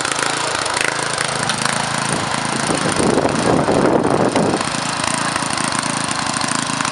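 Small garden-tractor engine running steadily under load, with a louder, rougher stretch from about three to four and a half seconds in.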